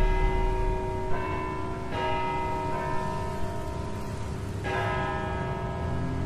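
Bells ringing: four chords struck at uneven intervals, each ringing on and slowly fading, over a low rumble.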